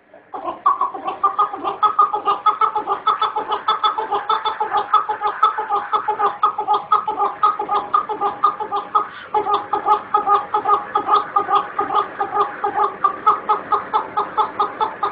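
Chukar partridge call: a long, fast, even run of clucking notes, about four or five a second, with one brief pause about two-thirds of the way through.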